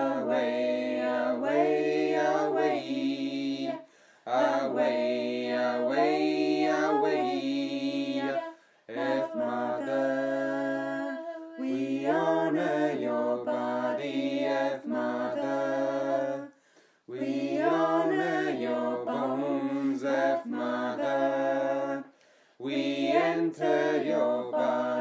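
Voices singing a chant a cappella, in sung phrases of a few seconds each with short breaks between them.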